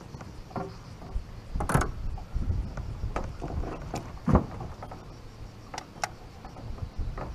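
Knocks and clicks as an angler moves about the deck of a bass boat and handles a fishing rod, the loudest about four seconds in, over a low rumble of wind on the microphone.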